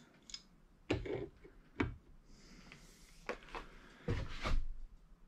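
Steel wrenches clinking and knocking against the tie-rod fittings of a steering cylinder as they are set on to tighten the tie rods: a few separate metallic clicks, with a short cluster of knocks near the end.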